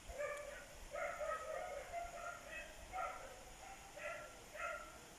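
A dog barking repeatedly, short barks coming about one or two a second.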